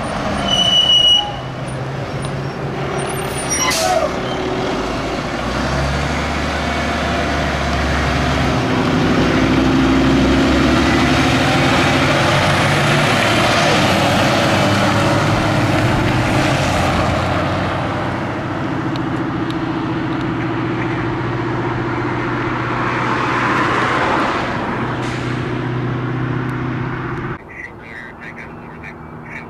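Fire engine's diesel engine pulling away and accelerating, its pitch climbing, with a brief loud high-pitched blast about a second in and a short sharp hiss of air brakes releasing about four seconds in. Near the end the sound cuts abruptly to a quieter, steady background.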